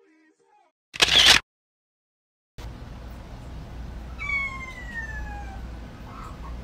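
A short, loud burst of hissing noise about a second in. Then, over a steady low hum, a cat's long, high meow falling in pitch, the call of a cat kept from going out onto the patio.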